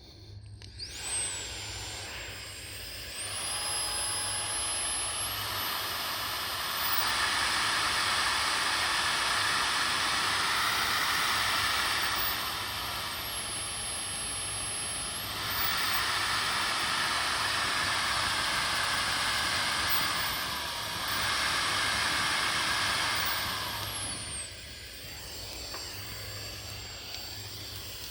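A small electric motor whining over a steady rush of air, its whine stepping up and down in pitch several times as the speed changes. The rush is loudest in the middle and drops back near the end.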